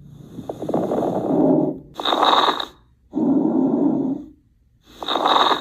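Recorded lung crackles: brief, intermittent popping sounds riding on repeated breaths in and out. They are the sign of inhaled air meeting deflated alveoli or secretions.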